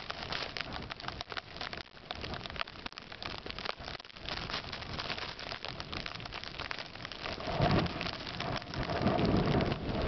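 Snowstorm wind blowing against the microphone, with a dense crackling patter throughout; heavier low gusts buffet in about three quarters of the way through.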